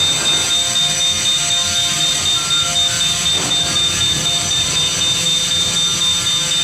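Electric fire alarm bell ringing continuously while the fire alarm system is being tested: a steady high ringing tone over a fast, even buzz.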